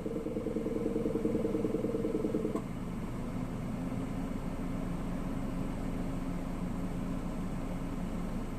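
Honda N-BOX Custom (JF3) air conditioning making a fast, rhythmic gurgling 'kobokobo' noise. It stops abruptly about two and a half seconds in with a faint click, leaving a steadier low hum. The owner hears this noise in the gap between the A/C fan stopping and starting again, and calls it quite loud in the car.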